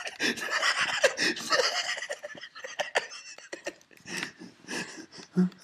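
Breathy, gasping laughter with scattered clicks, loudest in the first two seconds or so and dying down after.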